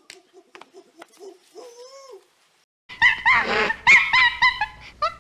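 An animal calling: a few faint clicks and one sliding call, then, about three seconds in, a loud run of short, quickly repeated pitched calls with a harsh, noisy cry among them.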